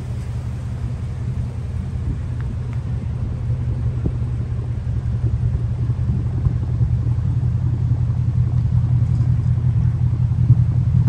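2013 Ford Mustang GT's 5.0-litre V8 idling through an aftermarket MagnaFlow exhaust: a steady low rumble that grows gradually louder.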